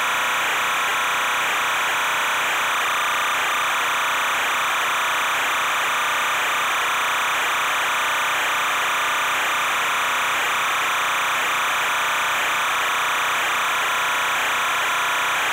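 Steady, unchanging hiss with a faint wavering tone in the middle of the range, with no distinct events.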